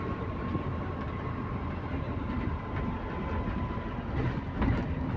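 Bus running, heard from inside the cabin: steady engine and road noise with a thin steady whine and light rattling, and a knock near the end. The bus has an exhaust leak.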